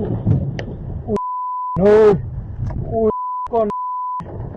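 A steady high censor bleep cuts in twice, blanking out a person's swearing. Between the bleeps a voice shouts loudly, over rough outdoor background noise.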